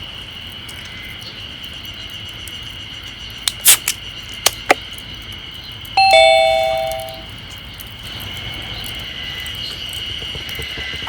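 A two-note ding-dong chime about six seconds in, the second note lower and each note ringing and fading over about a second. A few sharp clicks come just before it, over a steady high-pitched whine.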